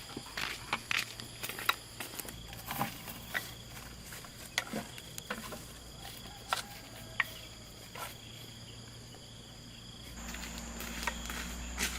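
Insects droning steadily at a high pitch, with scattered short, sharp clicks and knocks throughout. About ten seconds in, the background shifts to a louder, lower steady hum.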